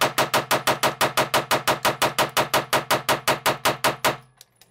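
Ruger PC Charger pistol fitted with a muzzle brake, fired in a fast, even string of about six or seven shots a second. The shots stop abruptly about four seconds in.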